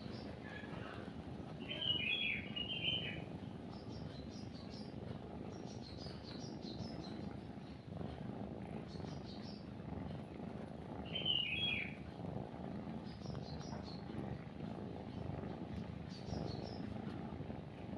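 A cat purring steadily under birdsong. Short high chirps come every second or two, with two louder chirping phrases, one about two seconds in and one about eleven seconds in.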